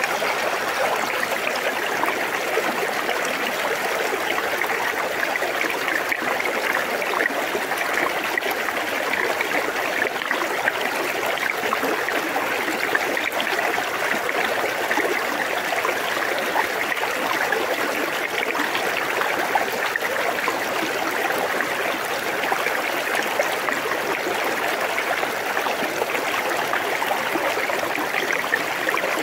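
River current babbling and trickling around rocks at the water's edge, a steady rush of moving water with no change.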